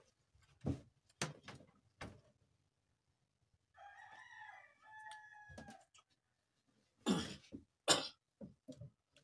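A rooster crows once, one long call of about two seconds in the middle. Around it come several sharp knocks and rustles, the loudest two near the end.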